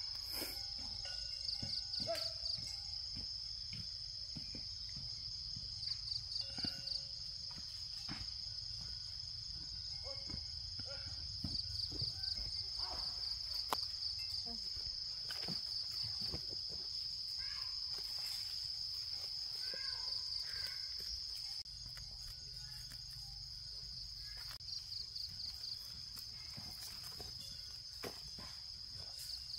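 Evening insect chorus: a steady high shrill with short pulsed trills every few seconds, over faint scattered rustles and knocks.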